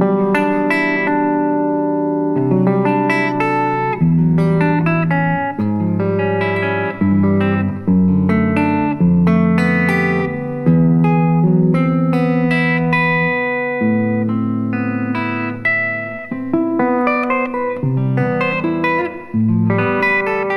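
Solo fingerstyle electric guitar on an Ibanez semi-hollow: plucked bass notes held for a second or two under higher melody and chord notes that ring over one another.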